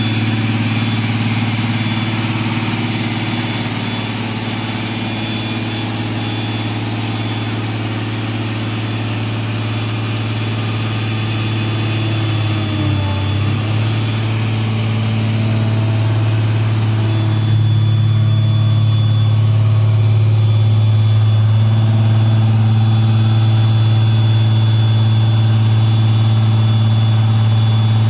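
Diesel engine of an underground mining drill rig running steadily as the machine drives. About halfway through the engine note dips briefly, then picks up and runs louder to the end.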